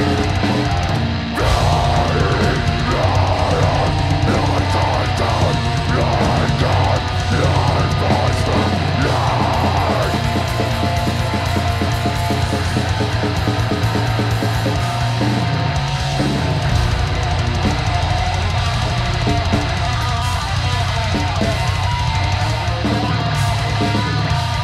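Live heavy metal band playing loud: a full drum kit and distorted electric guitars through Marshall amplifiers, a dense, continuous wall of sound.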